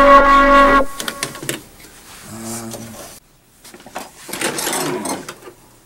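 A loud, steady electronic buzzer tone for about the first second, cutting off abruptly. Then come scattered clicks and a stretch of mechanical clattering and rattling.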